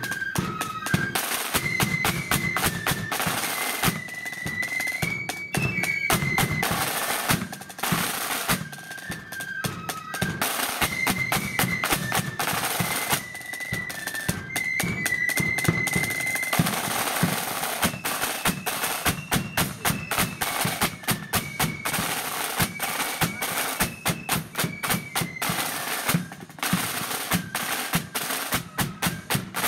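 Marching flute band playing: a rank of snare drums beating fast rolls and rhythms under a high flute melody.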